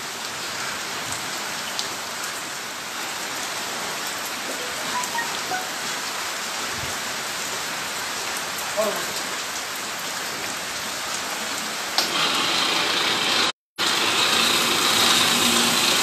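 Heavy rain falling steadily. About twelve seconds in, after a brief dropout, a louder, hissier spray takes over: a hose jet of water running at strong pressure close by.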